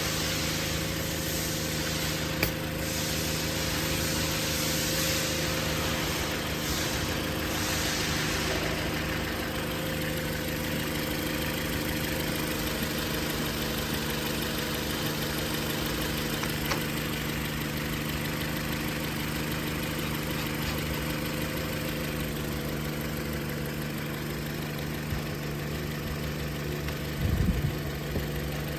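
A Toyota ZR-series inline-four engine idling steadily, with a short knock near the end.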